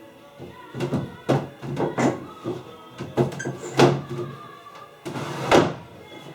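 Wooden cupboard doors or drawers of the repaired under-stairs furniture being opened and shut, about eight knocks and clunks at irregular intervals, over background music.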